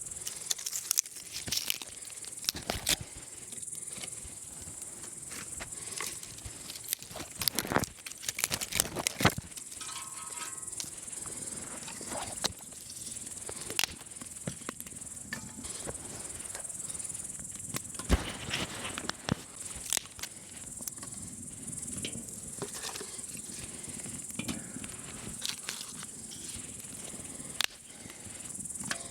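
Crickets chirping steadily in a high-pitched continuous chorus, with irregular sharp clicks and crackles scattered throughout.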